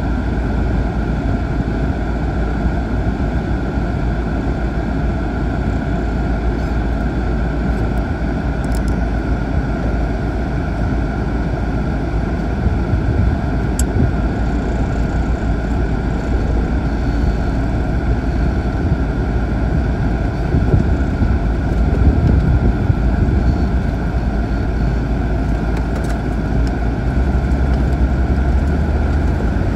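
Land Rover Discovery Td5's five-cylinder turbodiesel engine running steadily, heard from inside the cab as the vehicle moves off-road, swelling a little now and then and again near the end as it drives into water.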